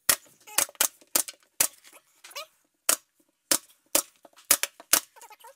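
Pneumatic brad nailer firing nails into base molding: about ten sharp shots at an uneven pace, a few tenths of a second to about a second apart.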